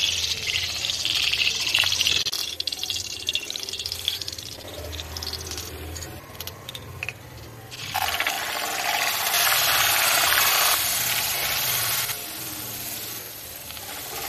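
Hot oil sizzling in a kadhai. About eight seconds in, ground spices hit the oil and the sizzle turns loud for two or three seconds, then dies down as they are stirred.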